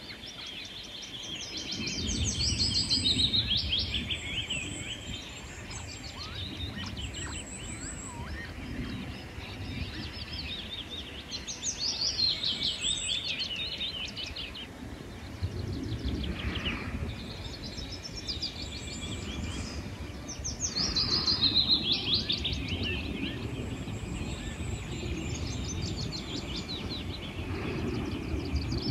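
Songbirds singing: a descending trilled song phrase, two to three seconds long, repeats about every nine seconds, with short thin high whistles between. A steady low rumble sits underneath.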